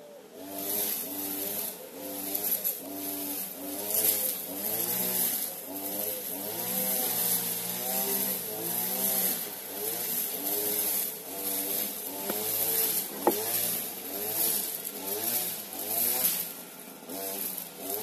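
Background music: a melody of gliding, changing notes over a low, pulsing bass line.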